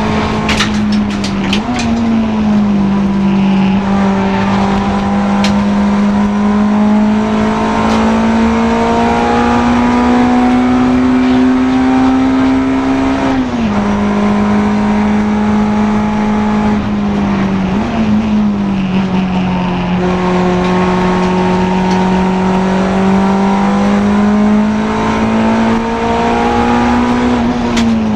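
Honda Integra DC2 race car's four-cylinder engine running hard under load. Its pitch climbs slowly and drops suddenly at upshifts about 2, 13 and 18 seconds in, then falls away near the end as the car slows. A few sharp crackles come in the first second.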